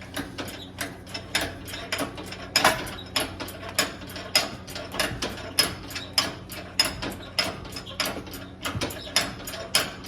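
A hand-operated ratcheting hoist clicking through stroke after stroke, about two to three clicks a second, as it lifts a heavy part off a Bridgeport milling machine.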